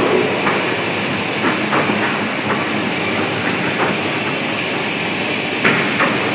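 Apron feeder running: a steady mechanical rattle of its steel pan chain over the rollers and drive sprocket, with a few short sharp clanks.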